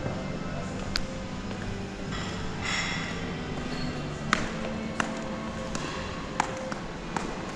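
Background music, with a few sharp clicks and taps sounding over it at irregular moments.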